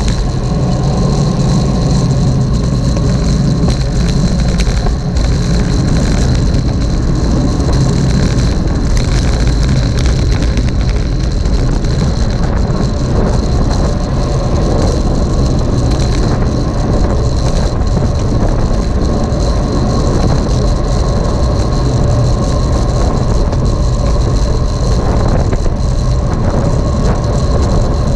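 Steady wind and road noise on a moving camera's microphone, heavy and rumbling in the low end, with a thin constant high-pitched whine.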